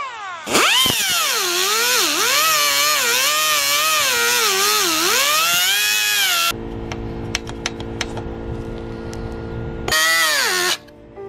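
Pneumatic cut-off tool with a small abrasive wheel spinning up and cutting through rusty steel exhaust hangers, its whine dipping and rising in pitch as the wheel bites into the metal. It stops abruptly about six seconds in, giving way to background music, then runs again briefly near the end and winds down with a falling pitch.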